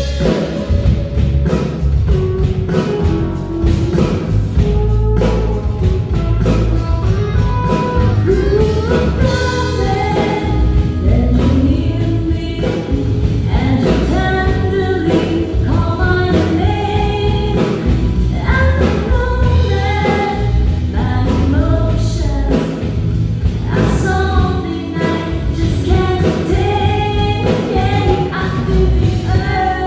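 A live pop band plays, with keyboard, electric guitar, bass guitar and drum kit, and a woman sings lead over it, her voice most prominent from about a third of the way in.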